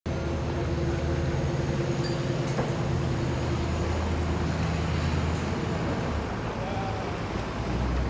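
Boat engine idling, a steady low drone with a hum over it.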